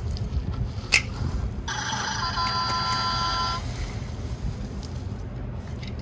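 A battery-powered toy truck's electronic sound effect plays a steady, ringing tone pattern for about two seconds, starting a little after the first second. Under it runs a low rumble, and there is a sharp click about a second in.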